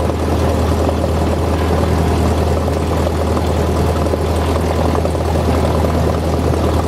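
Cessna 172's piston engine and propeller running steadily at low power while taxiing, a steady low drone heard from inside the cabin.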